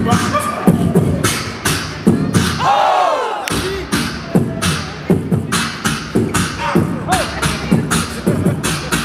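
Live beatboxing through a stage microphone: a steady beat of vocal kick and snare hits with hissing hi-hat sounds, and a swooping, rising-then-falling vocal effect about three seconds in.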